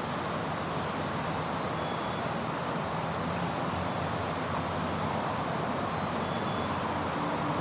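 Steady forest ambience: an even, unchanging bed of low rumble and hiss with thin, faint high steady tones over it.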